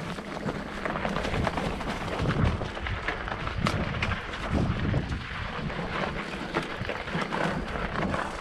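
Specialized Levo electric mountain bike riding over a dry, stony trail: tyres crunching on loose gravel and the bike rattling over small bumps, with many short clicks and knocks, and wind buffeting the microphone.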